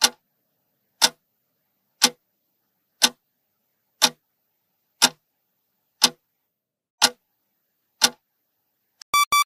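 Countdown-timer clock ticking once a second, about nine ticks in all, counting down the answer time. Near the end a quick run of short high beeps signals that the time is up.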